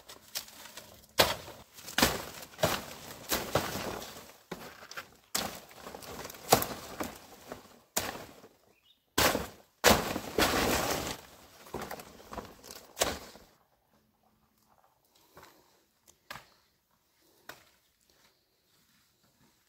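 Large leaves and their stems being cut with a knife and pulled from a leafy clump: leaves rustling and stems snapping in a string of sharp crackly bursts. It stops about two-thirds of the way in, leaving only a few faint ticks.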